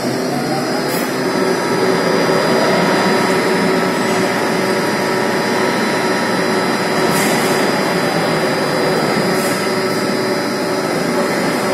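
AAC block clamping crane running with a steady mechanical hum and whine as its clamp arms lower over a block cake, with short hisses about a second in and again near seven and nine seconds.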